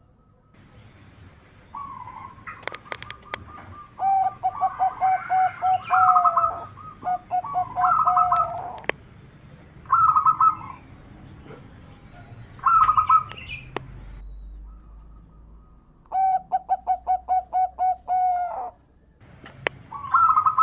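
Zebra doves (perkutut) cooing: about six bursts of rapid, stuttering coo phrases, with a few sharp clicks between them.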